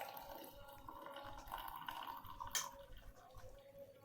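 Hot herbal spice decoction being strained into a glass, a faint trickle of liquid. There is a light click about two and a half seconds in.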